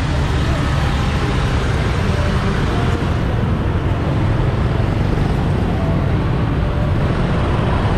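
Busy street traffic of motorbikes and scooters heard from a rider in the middle of it: a steady low rumble of engines and road noise. The higher hiss thins out about three seconds in, as the rider moves off.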